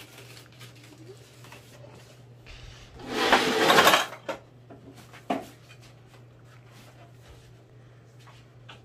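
Objects being handled and shifted on a cluttered table: one loud rustling scrape lasting about a second, a few seconds in, then a single short knock. A steady low hum runs underneath.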